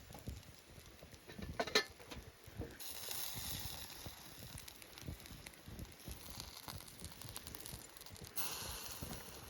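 Steak sizzling on a grill grate over a wood campfire, with the fire crackling; a sharp click about two seconds in, and the sizzle swells about three seconds in and again near the end. A waterfall rushes steadily behind.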